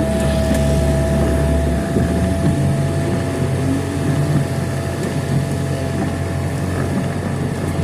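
Car interior noise: the engine's low hum while waiting in traffic, over a steady hiss of rain and wet road. The hum drops a little about two seconds in.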